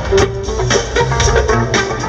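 Live rock band playing, heard from within the crowd: guitar and sustained notes over drums keeping a steady beat.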